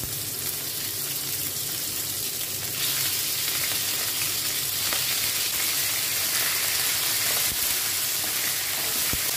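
Boneless chicken pieces sizzling as they go into hot oil with fried garlic in a grill pan, the sizzle growing louder about three seconds in as more pieces are added. Near the end a wooden spatula stirs them.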